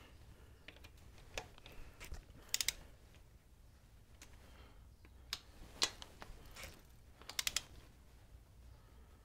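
Torque wrench tightening the primary cover bolts of a Harley-Davidson Sportster to 10 to 12 foot-pounds. It gives sharp metal clicks, some single and two quick runs of three or four, as the wrench works and breaks over at its set torque.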